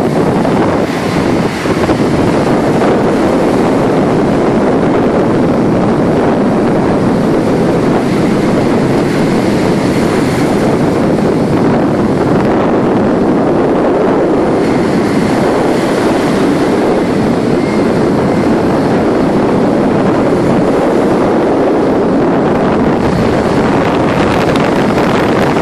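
Strong wind buffeting the microphone over the steady rush of breaking surf from rough, whitecapped seas.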